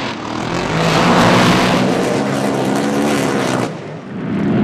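Drag boat racing engines running at full throttle as the boats launch and run down the course, with spray hiss. The sound dips briefly near the end, then rises again.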